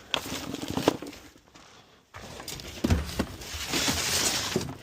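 Junk being sorted by hand: items knock and clatter as they are handled, with a burst of rustling and clattering from about halfway through.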